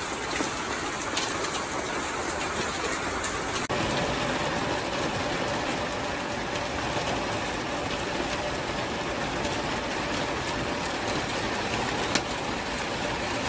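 Steady rain falling, with scattered sharper drop hits. The sound changes abruptly about four seconds in, and a faint steady hum runs underneath after that.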